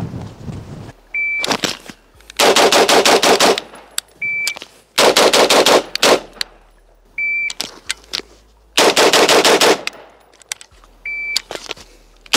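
Rapid strings of gunshots from a firearm, about eight shots a second, each string lasting about a second, three strings in all. A short high beep sounds about a second before each string.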